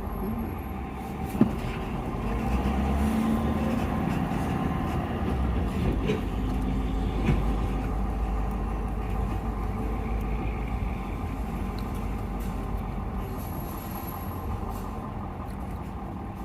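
Tow vehicle's engine running with a steady low rumble as it rolls slowly or idles, heard from inside the cab, with a brief knock about a second and a half in and another near the middle.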